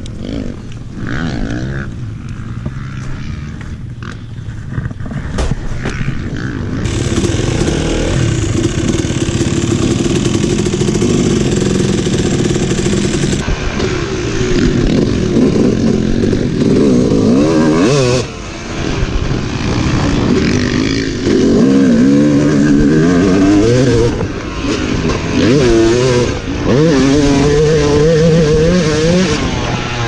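Yamaha 250 motocross bike engine heard from the rider's helmet, quieter at first, then opening up about seven seconds in and rising and falling in pitch over and over as the rider throttles on and off and shifts around the track, with a short dip about eighteen seconds in.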